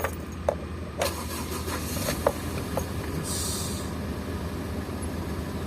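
Ford Everest engine running steadily, with several sharp clicks and knocks over the first three seconds and a short hiss about three seconds in.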